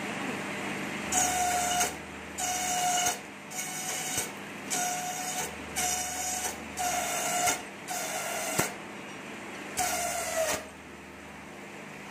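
Satay-skewer slicer machine running with a steady hum, broken by about eight short whining bursts, each under a second long, as stock is fed through and cut.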